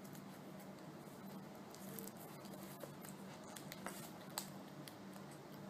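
Hands handling and opening an album's paper and plastic packaging: scattered light clicks and crinkles, with a couple of sharper ticks a little before the four-second mark and again just after it.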